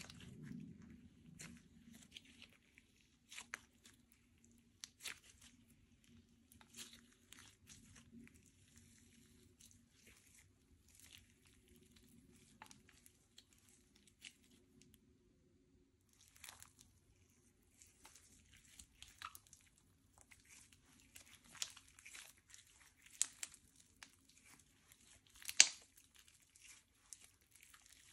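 Slime being squished and stretched by hand, with a run of irregular crackling clicks and small pops. One sharp pop stands out near the end.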